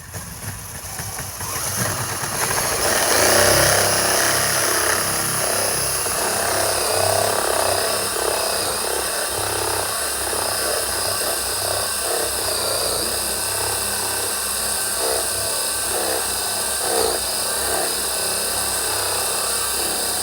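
Power drill boring with a 2.5-inch hole saw, running under load and winding up over the first few seconds, then holding a steady cut with a rough, chattering grind.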